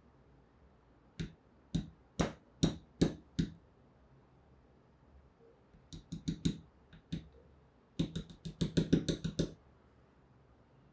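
Small hard plastic pieces clicking and tapping against a hard surface as they are handled. There are three bursts: a few separate taps, then a short cluster, then a quick run of about ten clicks near the end.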